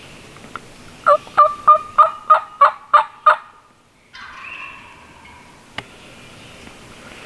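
A series of eight loud turkey yelps in quick succession, about three a second, then a fainter drawn-out call after a short pause and a single sharp click.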